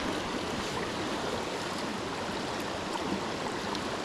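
Steady rush of a small, rocky mountain creek running over stones.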